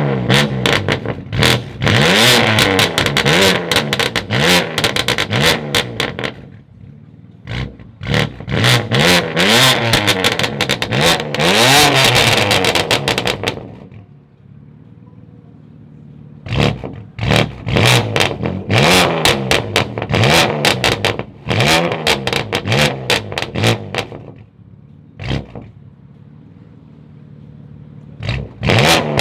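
Tuned sports car engine revved hard and repeatedly, its pitch rising and falling with each blip of the throttle, with sharp crackles from the exhaust. The revving comes in three long sets, with two quieter spells at idle between them, then a short blip and more revs near the end.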